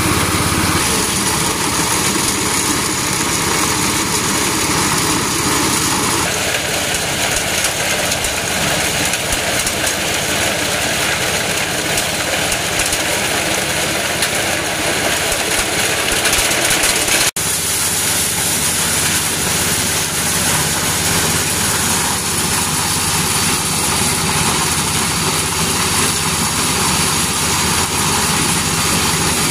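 Engine-driven corn sheller running steadily with a continuous loud mechanical noise, its tone changing about six seconds in and cutting out for an instant a little past the middle.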